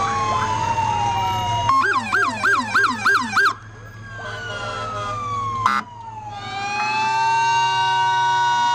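Several emergency-vehicle sirens, from police and fire vehicles, sound together in overlapping wails whose pitches rise and fall. A couple of seconds in, one switches to a fast yelp for about two seconds and cuts off. Near the end the sirens wind back up to a steady wail.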